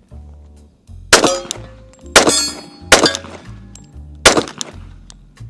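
Four shots from a Glock 21 .45 ACP pistol about a second apart, each followed by the ringing clang of a struck steel target. Background music with a low bass line runs underneath.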